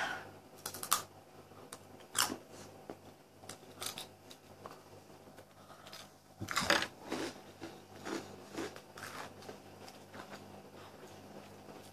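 A crunchy breadstick topped with cream cheese being bitten and chewed: irregular quiet crunches, with a louder noise about six and a half seconds in.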